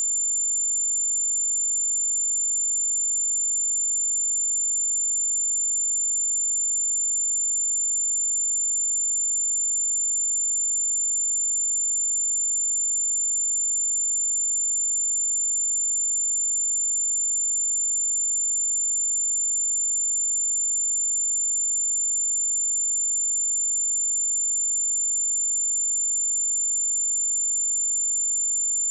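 A pure 7175 Hz sine-wave test tone: one steady, unbroken high-pitched tone at constant level.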